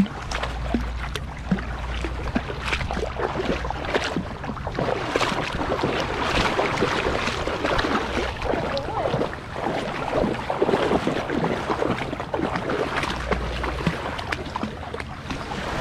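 Water sloshing and splashing around a dog's legs as it wades through shallow water, picked up close by a camera strapped to the dog, with gusts of wind buffeting the microphone near the start and again near the end.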